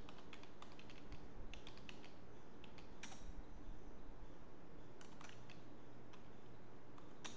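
Typing on a computer keyboard: short runs of keystroke clicks with pauses between them.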